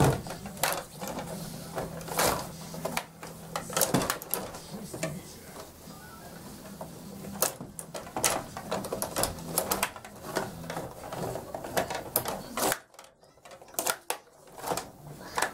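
Stiga rod table hockey game in play: the rods being pushed, pulled and spun, plastic players clacking on the puck and against each other, and the puck knocking off the boards, a fast, irregular clatter of clicks and knocks. It eases off briefly about thirteen seconds in, then picks up again.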